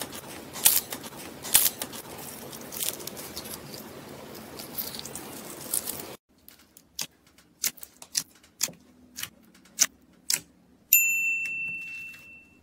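Slime being squeezed and worked by hand. For the first half it gives a steady crackling hiss with sharp crackles. After that come separate sharp pops and clicks about every half second. Near the end a single bell-like ding rings out and fades.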